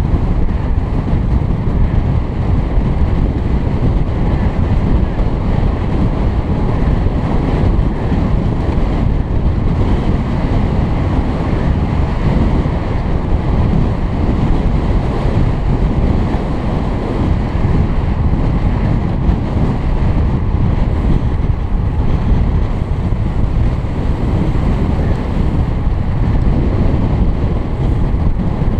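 Steady, loud wind rumble on a helmet-mounted camera's microphone from riding at racing speed on a road bicycle.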